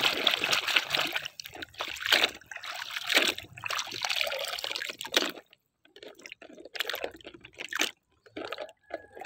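A plastic toy airplane swished by hand through shallow water, rinsing the mud off it: irregular splashing and sloshing. The splashing stops briefly a little past halfway, then goes on as smaller splashes and drips.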